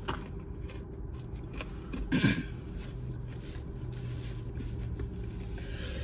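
Quiet chewing over a steady low hum in a car cabin, with one short throaty vocal noise about two seconds in.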